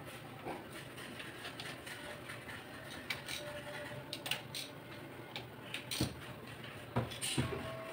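Socket wrench clicking and metal tools clinking on the cylinder head of a Mitsubishi 4D34 engine as its head bolts are run down: scattered sharp clicks at uneven intervals, the loudest near the end.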